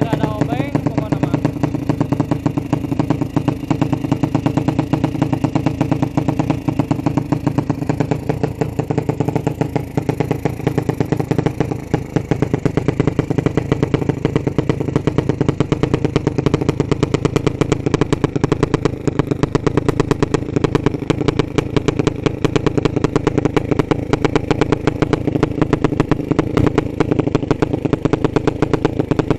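Drag-built underbone motorcycle's four-stroke single with open carburettor and racing exhaust running steadily at idle, a loud, fast even string of exhaust pulses.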